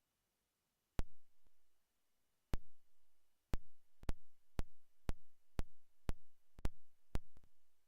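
A series of sharp knocks, each with a short dull thud after it, irregular at first and then settling into about two a second, with silence between them.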